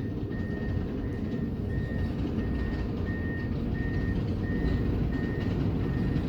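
A high electronic beep repeating evenly about every 0.7 seconds over a steady low rumble.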